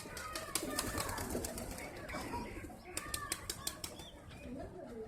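Birds calling, with two quick runs of sharp clicks, one about half a second in and one about three seconds in.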